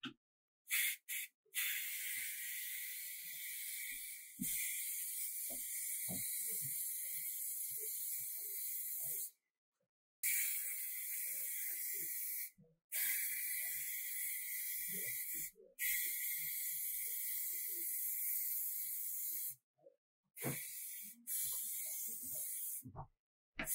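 Aerosol can of clear acrylic lacquer hissing as it sprays, in long bursts of several seconds with short pauses between them, and a few brief spurts near the start and end.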